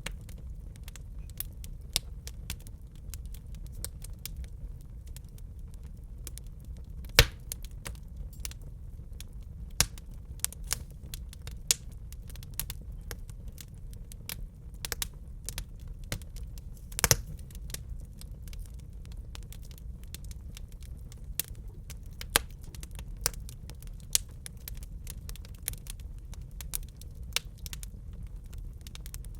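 Wood fire burning in a fireplace: irregular crackles and pops over a steady low rumble, with two louder pops about 7 and 17 seconds in.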